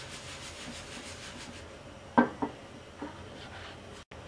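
Nonstick frying pan being shifted about on a gas stove's metal grate: a rubbing scrape, then two sharp knocks about two seconds in and a lighter one a moment later. A steady hiss from the lit burner runs underneath.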